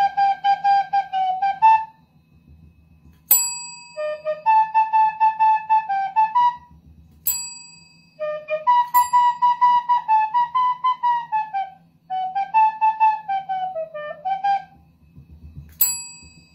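A desk call bell is struck three times by a dog's paw, each strike a sharp ding that rings on briefly: about three seconds in, about seven seconds in, and near the end. Between the dings come short phrases of a flute-like melody in quick pulsing notes.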